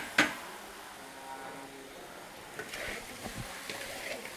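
A metal spatula clanks sharply against a large steel wok right at the start. Then come softer stirring and scraping over a faint sizzle as glazed vegetarian chicken wings are tossed in the pan.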